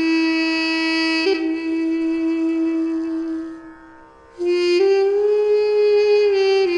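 Armenian duduk in C played solo: a long held note with a brief ornament about a second in, fading out near the middle, then a new, slightly higher note that slides up and is held.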